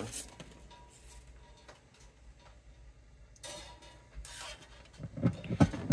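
Mostly quiet, then small clicks and knocks in the last couple of seconds, the loudest at the very end: acoustic guitar bridge pins being pushed into freshly reamed bridge pin holes and seating fully.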